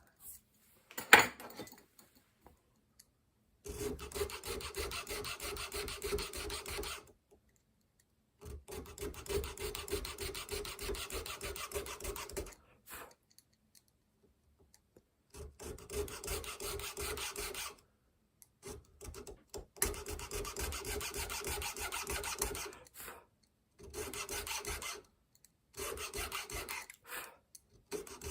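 Rapid back-and-forth scraping strokes of a hand tool, filing or cutting, in runs of a few seconds broken by short pauses, with a sharp click about a second in.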